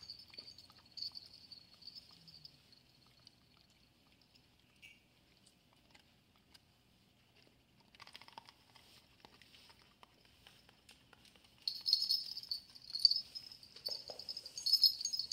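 Small bells on a dog's collar jingling as the dog moves, in soft scattered bursts with a quiet stretch in the middle, growing louder and busier for the last few seconds.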